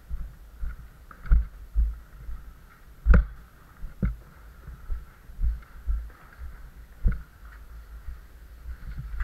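Irregular dull knocks and scuffs of a caver climbing through a rock passage, gear and body bumping against rock and the camera, the loudest about three seconds in, over a faint steady rushing.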